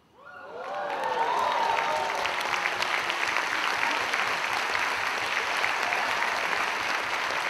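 Audience reacting to a card-trick reveal: a brief rising chorus of voices, then dense clapping that swells within the first second and holds steady.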